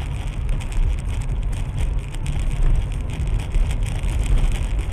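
A car driving, heard from inside the cabin through a dashcam microphone: a steady low road and engine rumble with some hiss.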